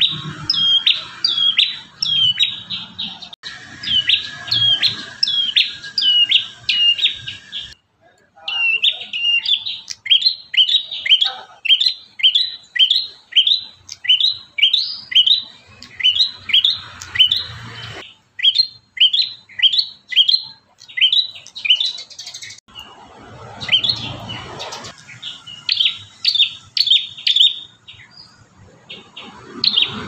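Caged prenjak tamu singing: fast strings of short, sharp chirping notes, several a second, in runs broken by brief pauses.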